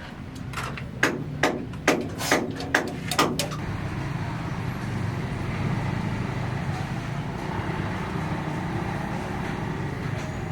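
About seven sharp knocks in quick succession, a little over two a second, then a steady low mechanical hum.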